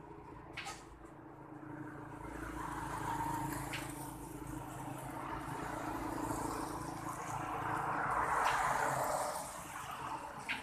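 Engine of a homemade motorcycle-based vehicle running steadily, swelling louder twice as it is revved, most strongly near the end.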